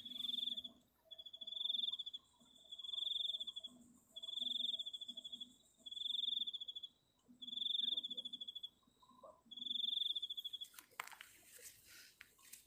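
Cricket chirping in regular high trills, each about a second long and repeating about every one and a half seconds, about seven in all. Near the end the trills stop and a few brief rustles are heard.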